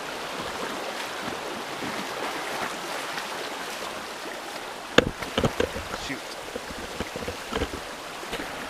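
Creek water rushing steadily. About five seconds in comes a sudden sharp knock and splash, followed by a run of smaller splashes and knocks from someone wading across the creek.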